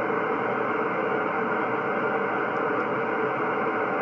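Steady band-noise hiss from a Yaesu HF transceiver receiving on 10-metre upper sideband, played through an external Yaesu speaker, with no station on the frequency. A few faint steady tones sit inside the hiss.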